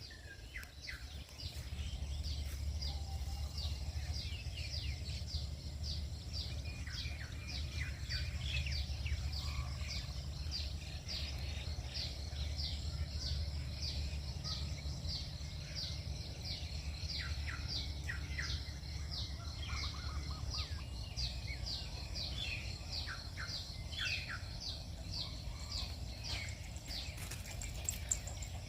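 Birds chirping, many short calls repeated in quick succession, over a steady low rumble of outdoor background noise.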